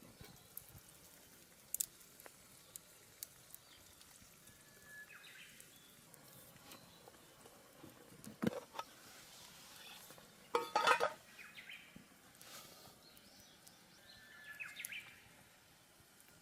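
Quiet campfire cooking: scattered light clicks and knocks of utensils and cookware, with a short burst of clatter about ten seconds in. Two brief high chirps sound, one about five seconds in and one near the end.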